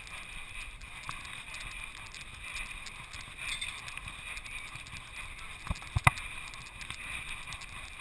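Steady muffled noise through a GoPro's housing strapped to a dog's back, with two sharp knocks about six seconds in, the second the louder.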